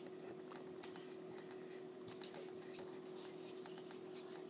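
Faint scratchy rustles and small clicks of a child's hands rubbing and moving, over a steady low electrical hum.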